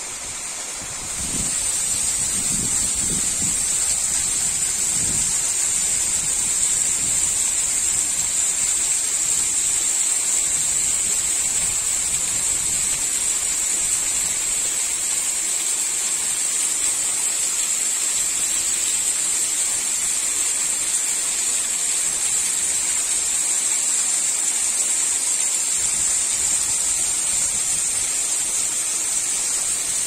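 Small ephemeral waterfall, a thin stream falling down a rock face and splashing onto stones: a steady, even rush of water that gets louder about a second in, then holds level.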